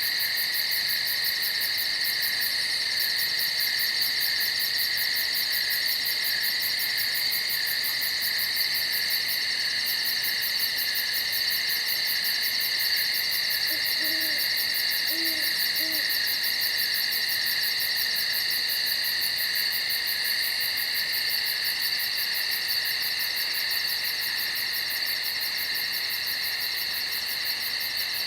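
Steady, dense night insect chorus, a continuous high trilling with a fast pulse on top. About halfway through, an owl hoots three short low notes.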